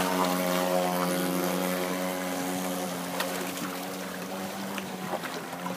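26cc gas engine of a 51-inch radio-controlled speedboat running at speed, a steady single-pitched note that fades gradually as the boat moves away.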